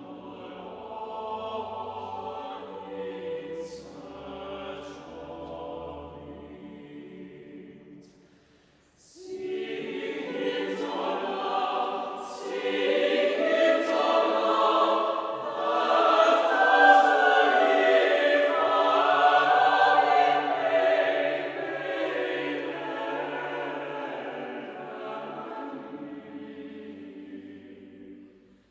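Choir singing: a quieter phrase, a short break about eight seconds in, then a fuller, louder passage that swells and fades away near the end.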